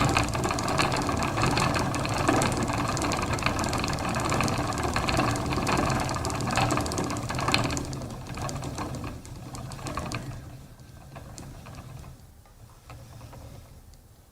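Old wooden spinning wheel turning, with a busy clattering and creaking of the wooden wheel and its parts over a low rumble. About halfway through it grows quieter and sparser, and it dies away near the end.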